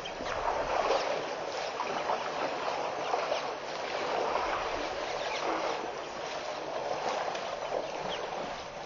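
Water sloshing and splashing, a steady rushing wash, from a herd of African elephants wading and spraying in a waterhole.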